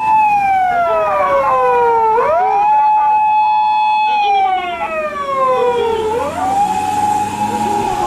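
Emergency siren of a Japanese 'Doctor Car' emergency vehicle wailing. It slides slowly down in pitch for about two seconds, then sweeps quickly back up and holds the high tone. This happens twice.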